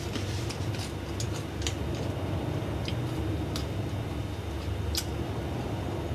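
Scattered small clicks and taps of a fork against a plate of fried noodles, with chewing, over a steady low background hum.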